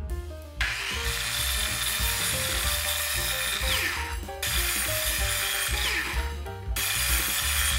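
Stanley sliding mitre saw cutting through a taped bundle of wood strips: the motor and blade run in three stretches, and twice the whine falls in pitch as the blade winds down between cuts. Background music plays underneath.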